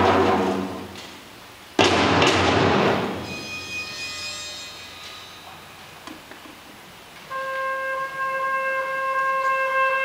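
Orchestra playing live. A loud percussion crash dies away, and a second crash comes about two seconds in. A quiet held chord follows, then from about seven seconds a single long sustained wind note.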